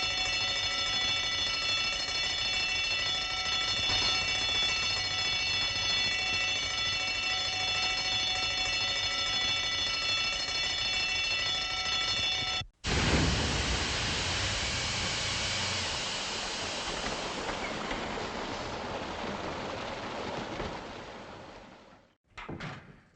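A bell ringing continuously with many steady ringing tones, which cuts off abruptly about 12 seconds in. A loud rushing hiss follows for the diving chamber and fades out over the last few seconds. Just before the end there is a short door-closing sound.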